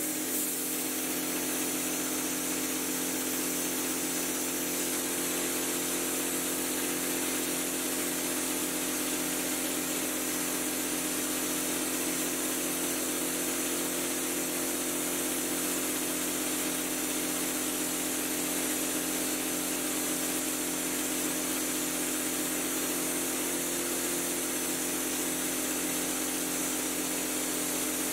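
Drywall hopper gun spraying orange peel texture on compressed air: a steady machine hum under a constant high hiss of air and mud leaving the nozzle.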